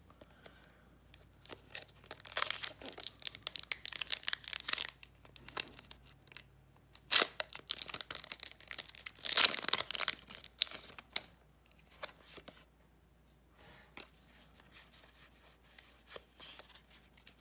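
A foil Pokémon booster pack wrapper being torn open and crinkled, in irregular rips and rustles, with the sharpest tears about a third of the way in and near the middle. The rest is fainter rustling of the pack and cards.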